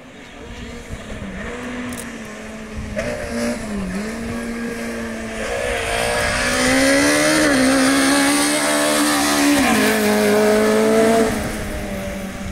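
Rally car engine at full stage speed on a gravel road, the revs climbing and dropping sharply with each gear change and lift, over the hiss of tyres on gravel. It grows loud as the car comes past, about six seconds in, and starts to fade near the end.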